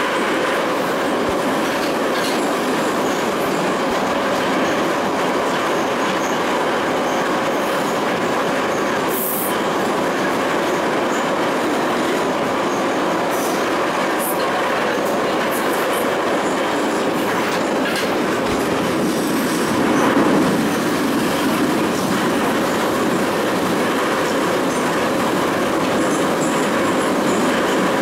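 An Ezh3 metro car running along the line, heard from inside the car: a steady rumble of wheels on rail with a faint steady hum. A few sharp rail clicks come through, and the noise swells briefly about two-thirds of the way in.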